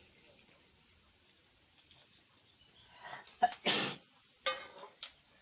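A person sneezes once, loudly, about three and a half seconds in, after a short indrawn lead-up, followed by a brief sound from the voice and a click.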